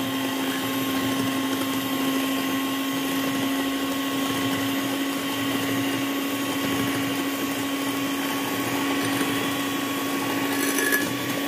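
Philips 400 W electric hand mixer running at a steady speed, its twin wire beaters whisking eggs and sugar in a glass bowl: an even motor hum throughout.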